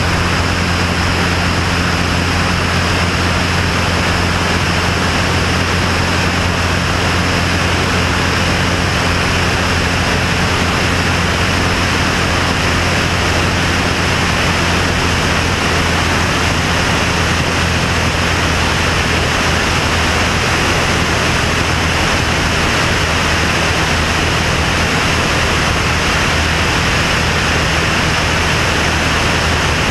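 Single-engine propeller plane in steady cruise: the piston engine and propeller drone at a constant pitch under a loud, even rush of airstream noise over the microphone.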